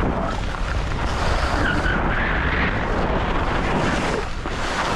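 Skis scraping and hissing over packed snow on a downhill run, with wind rumbling on the microphone.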